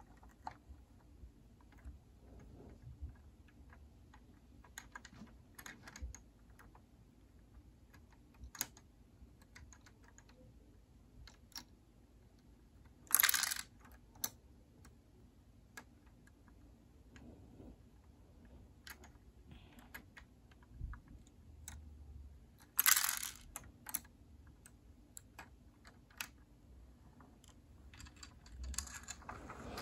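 Small plastic clicks and clacks of Lego pieces as a Lego garbage truck is handled and its side arm grabs the little bins, with two louder brief rattles about 13 and 23 seconds in.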